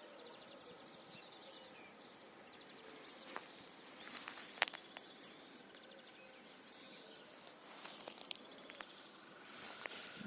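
Faint outdoor ambience: distant birds trilling, with a few short rustling, crunching sounds about a third of the way in and again near the end.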